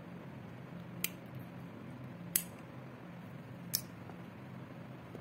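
Three sharp metallic clicks, spaced about a second and a half apart with the middle one loudest, from the metal slide parts of a 9 mm Zigana pistol being handled during disassembly, over a steady low hum.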